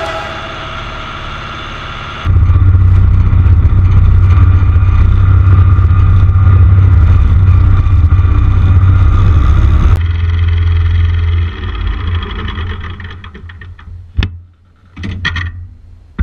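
International Harvester 733 tractor's four-cylinder diesel engine running steadily under way, loud from about two seconds in. After a cut about ten seconds in it is quieter and tails off, with a sharp knock and then a brief rattle near the end.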